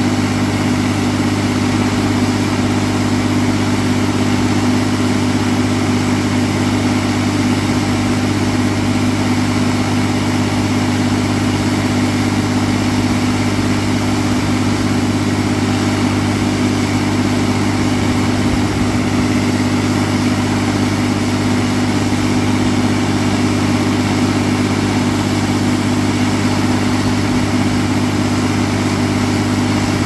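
Atlas Copco XA 420 towable diesel air compressor running steadily: an unchanging engine drone with a strong low hum and no change in speed.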